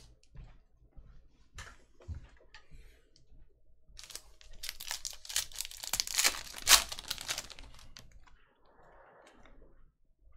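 Foil wrapper of a Panini Mosaic basketball card pack being torn open and crinkled, starting about four seconds in and lasting about three seconds. A few light clicks come before it, and a softer rustle follows.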